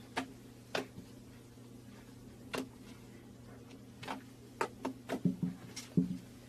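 Irregular light clicks and taps from hands working with slime-making materials, coming more often in the second half, over a steady low hum.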